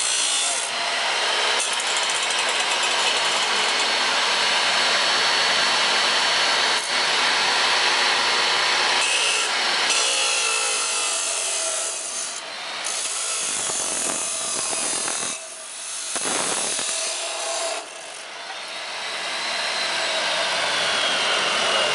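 AEG SMT-355 14-inch abrasive cut-off saw, its wheel grinding through metal. The cutting noise eases and briefly drops out twice past the middle, then builds again with a whine that slowly falls in pitch.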